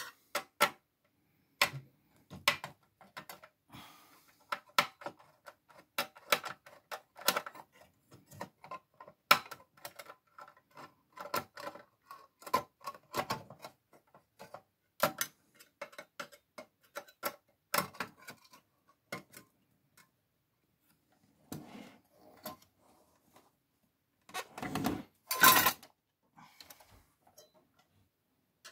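Irregular small plastic clicks and taps from hands working on the opened CD mechanism of a micro hi-fi, then a louder clattering handling noise near the end as the unit is moved.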